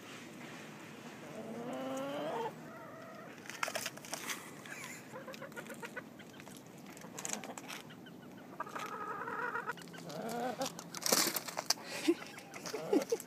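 Chickens clucking, with several short drawn-out hen calls that bend up and down in pitch. Scattered sharp clicks and knocks are heard, the loudest about eleven seconds in.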